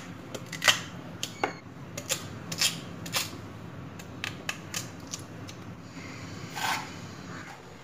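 Kitchen knife hacking peeled cassava into chunks over a stainless-steel plate: a string of irregular sharp clicks and knocks as the blade cuts through and taps down, thinning out near the end.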